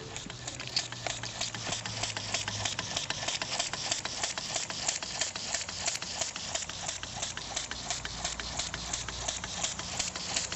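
Homemade single-acting, one-cylinder 3.3 cc model steam engine running under steam, beating with a fast, even rhythm of about five strokes a second.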